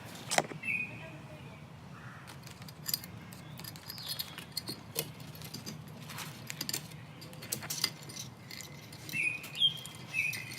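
Thin craft wire being wrapped around a glass cup, giving scattered light clicks and scrapes of metal on glass. A few short high chirps come about a second in and again near the end.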